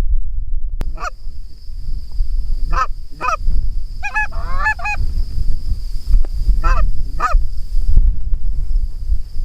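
Goose honks: a single honk, then pairs of honks and a quick cluster of overlapping calls in the middle, over a steady low rumble.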